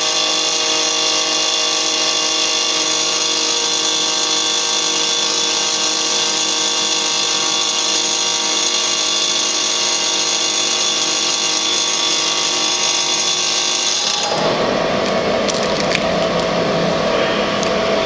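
IKA MF 10 micro fine grinder running, a steady high whine of many tones over a hiss. About 14 seconds in the sound changes abruptly to a rougher, lower rumble.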